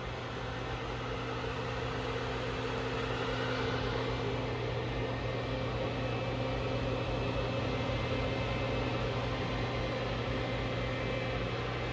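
Steady low machine hum with an even fan-like hiss, unchanging throughout, from powered machinery in a machine shop.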